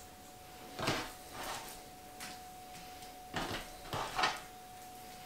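Raw beef strips being scooped by hand off a cutting board and dropped into a stainless steel bowl of marinade: a few short, soft handling sounds, one about a second in and a quick cluster near the end, over a faint steady hum.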